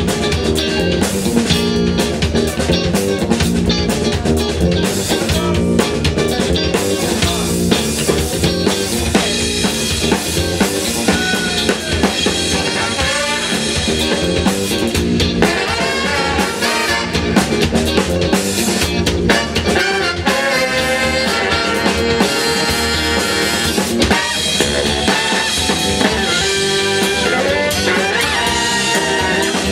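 A live funk band playing: a horn section of saxophones, trumpet and trombone over a steady drum-kit beat and electric bass.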